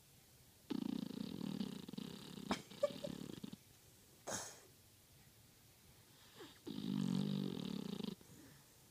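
Beagle snoring in its sleep: a long, low, rattling snore, a short breathy puff, then a second, shorter snore.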